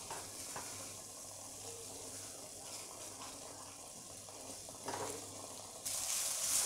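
Thick tomato-onion masala sizzling gently in oil in a pan as a spatula stirs it, with a few soft scrapes. The sizzle grows louder near the end. The oil has separated from the masala, the sign that it is fully fried (bhuna).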